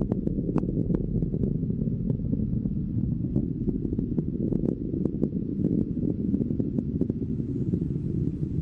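Rocket engines in first-stage flight: a steady low rumble with irregular sharp crackling pops.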